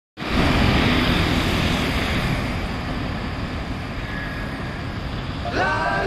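Steady urban road traffic noise, a continuous wash of passing vehicles. Music with gliding tones comes in just before the end.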